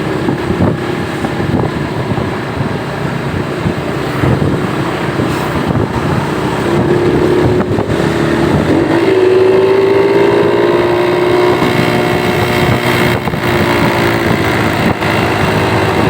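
Bus engine and road rumble, then about six seconds in a bus's basuri telolet air horn starts sounding, holding several notes at once as a chord that bends slightly in pitch.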